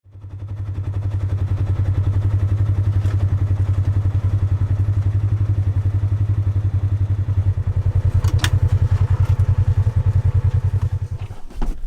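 A vehicle engine running at a steady speed, a deep, even, rapid pulsing throb. It fades in at the start and stops shortly before the end, with a couple of faint clicks along the way.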